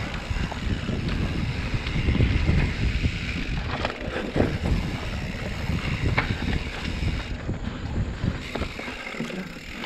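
Mountain bike riding fast on dirt singletrack: the tyres rumble over the ground and wind buffets the camera microphone, with a few knocks and rattles from the bike over bumps.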